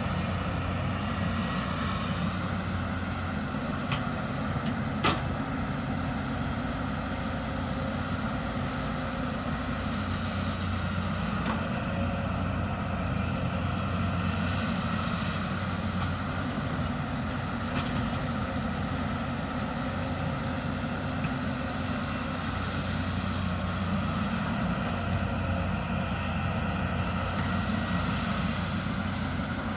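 Hyundai 220 excavator's diesel engine running steadily, with a single sharp click about five seconds in.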